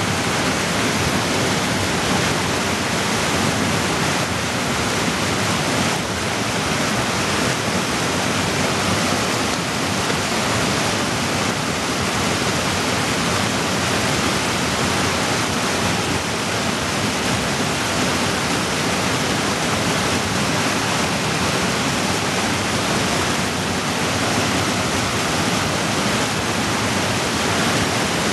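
Whitewater creek rushing over boulders in small cascades: a loud, steady rush of water.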